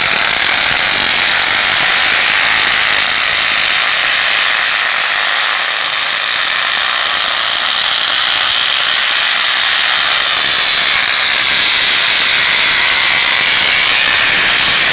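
Bubble wrap being popped by a bicycle as it rides, a dense, unbroken crackle of rapid pops that holds steady.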